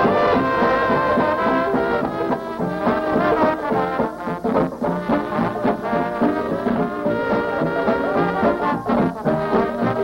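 Instrumental background music, several instruments playing together.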